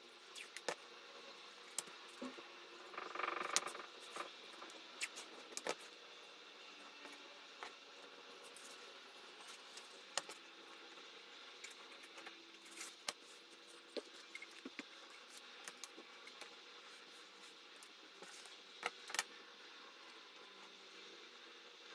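Faint hand-work sounds: masking tape pulled off its roll and paper pattern pieces and leather handled on a cutting mat, with scattered light clicks and taps.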